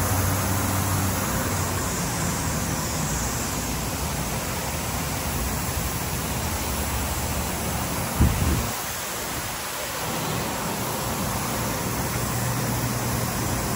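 Steady, even hiss of shop background noise with a faint low hum, broken by one short knock about eight seconds in.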